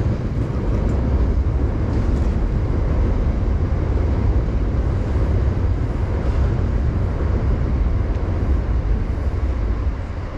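Wind buffeting the microphone: a loud, deep, fluttering rumble that eases off near the end.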